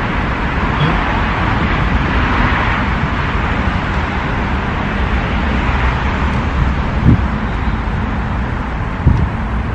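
Steady rush of road traffic noise, with two brief low thumps about seven and nine seconds in.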